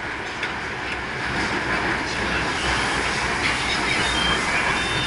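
Beijing Subway train running, heard from inside the car: a steady rumble of wheels on the rails with some track clatter, growing louder, and brief faint high wheel squeals in the second half.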